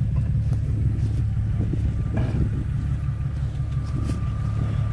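Jeep Cherokee XJ's engine running at low revs as it crawls slowly along a trail, a steady low rumble. A faint steady high whine comes in about two seconds in.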